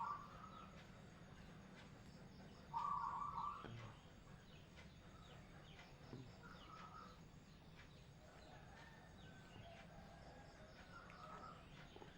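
Quiet background with a bird calling several times, the loudest call about three seconds in and fainter ones later.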